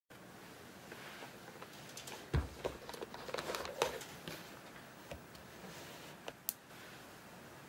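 Cordovan leather dress shoes being handled by hand on a table: a few light knocks, taps and rustles, the loudest a dull thump about two and a half seconds in, over faint room tone.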